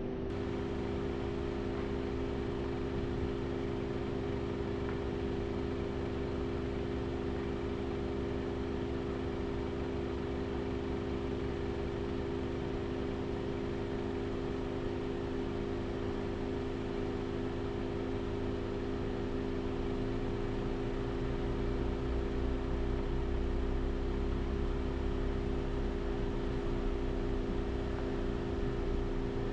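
Steady vehicle drone: a low rumble under a hum of several steady tones, with the rumble growing a little louder about twenty seconds in.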